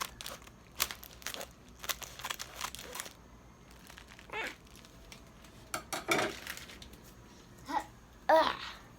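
Plastic instant mac and cheese packet crinkling with sharp crackles as it is handled and cut open, mostly in the first three seconds. A few short wordless vocal sounds from a child follow, the loudest near the end.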